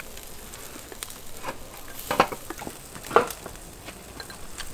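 Lamb ribs sizzling on a wire grill over charcoal: a steady hiss with small crackles, and two louder sharp pops about two and three seconds in.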